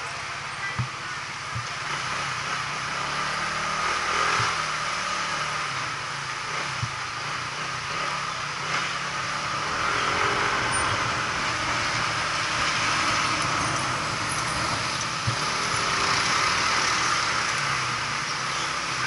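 Engine and road noise of a vehicle driving in city traffic: a steady low engine hum under a hiss of wind and tyres, with a few light knocks. It gets louder after the first few seconds.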